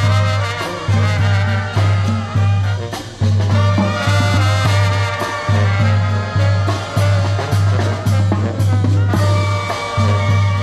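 Upbeat background music with a steady pulsing bass beat under layered melody lines.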